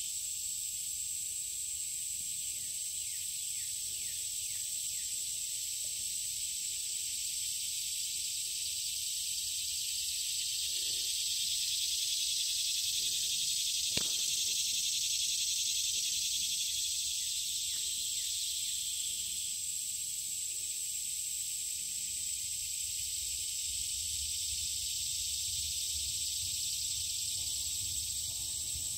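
Chorus of summer insects in dense weeds: a steady, high-pitched buzzing drone with one thin ringing tone held over a broader hiss, swelling a little louder in the middle. A single sharp click sounds about halfway through.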